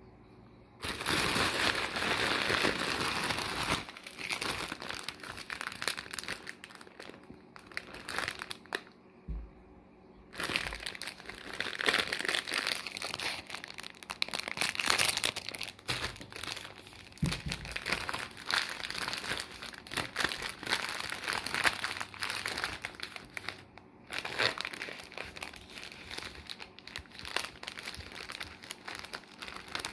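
Clear plastic bag and the plastic wrappers of the butter mamon inside crinkling as they are handled and opened. The crinkling starts about a second in and comes in stretches with brief pauses.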